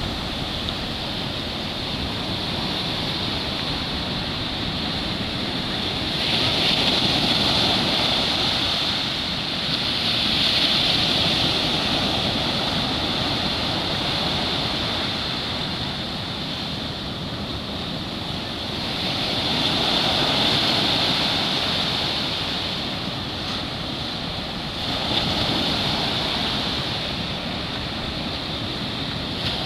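Ocean surf breaking. A steady rush of white water swells louder about four times as waves break and then falls back.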